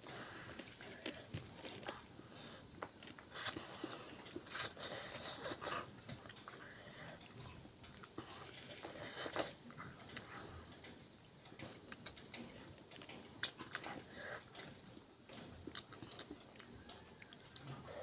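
A child eating chicken instant ramen noodles: wet chewing and slurping in irregular bursts, louder around a third of the way in and again about halfway.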